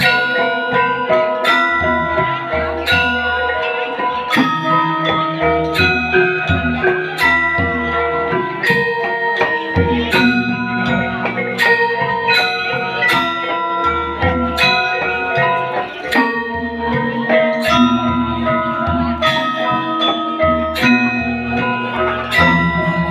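Balinese gamelan music: bronze metallophones struck in a steady pulse, their tones ringing on over low, sustained bass notes.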